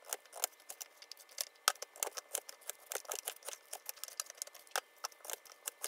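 Chef's knife cutting peeled raw beets into chunks on a parchment-covered cutting board: many light, irregular clicks and taps, several a second, as the knife meets the board and the pieces are gathered into a glass bowl.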